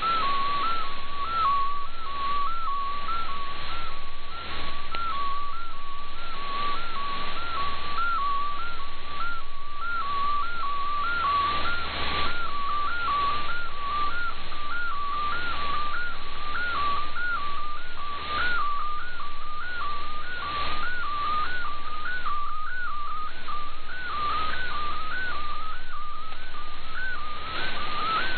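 MFSK64 digital picture transmission received by shortwave radio: a single whistling data tone that keeps hopping briefly upward and back in a steady repeating pattern, over shortwave hiss with gentle fading swells.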